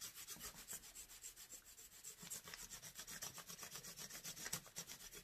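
Colored pencil rubbing quickly back and forth over paper laid on a leaf, a faint, even run of short scratchy strokes, about eight a second.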